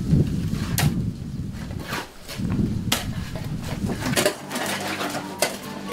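Scattered sharp knocks and taps of hand tools on concrete blocks and cement work over a low rumble. From about four seconds in, a steady hum joins.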